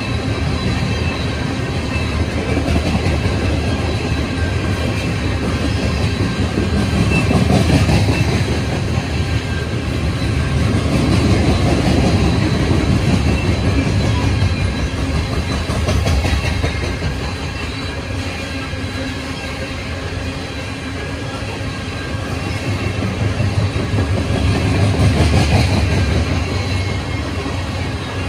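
CSX coal freight train rolling past: a steady loud rumble of steel wheels on the rails, swelling and easing every few seconds as the cars go by.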